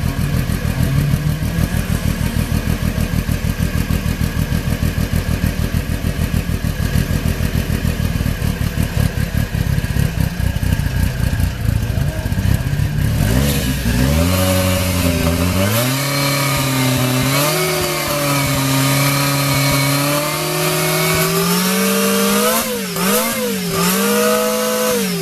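Lancia Delta S4 Group B car's twin-charged 1.8-litre four-cylinder engine running stationary, first at a lumpy, pulsing idle. About halfway through it is revved up and held at higher revs that climb in steps, with a few quick blips down and up near the end.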